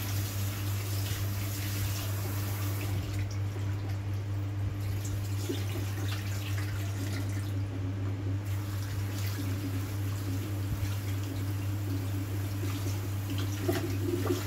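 Kitchen tap running into a stainless steel sink while hands rinse blanched black fungus in a bowl under the cold stream. A steady low hum sits underneath.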